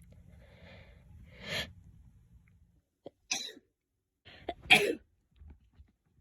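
A person's sneeze buildup: a few soft, breathy inhalations, a short catch about three seconds in, then one sharp sneeze well past halfway through, the loudest sound.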